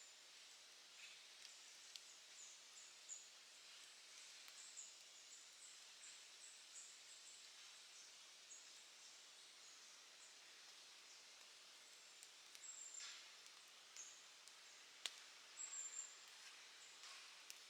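Faint campfire crackling, with scattered sharp pops over a soft hiss and one louder pop late on. Short, high chirps of small birds sound on and off throughout.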